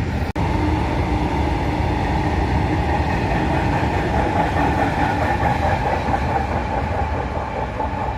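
Indian Railways train running on the rails, a steady rolling noise, broken by a split-second drop-out just after the start.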